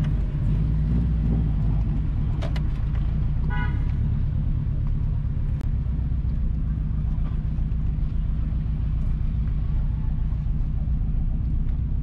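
Steady low rumble of a car driving slowly, heard from inside the cabin, with one short car-horn toot about three and a half seconds in.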